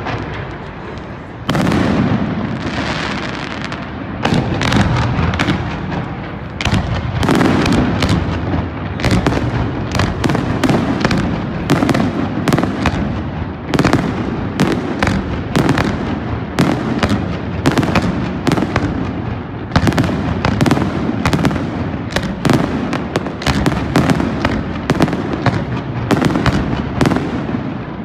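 Aerial fireworks shells bursting in a dense barrage: booms come one to two a second over continuous crackling and rumble. There is a brief lull before a loud bang about a second and a half in.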